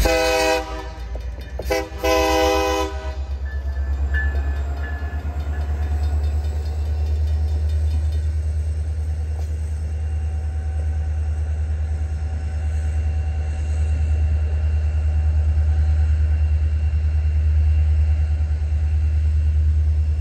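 Union Pacific diesel locomotive sounding two horn blasts at the start, the second about two seconds in, then rumbling past the crossing with a steady low drone.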